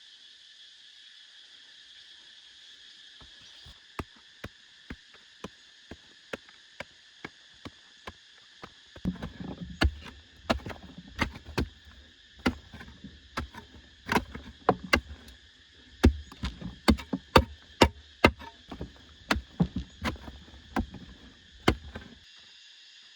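Repeated knocks and thuds of hand-tool work, sparse at first, then a dense run of loud strikes for most of the second half before stopping near the end. A steady insect chorus buzzes throughout.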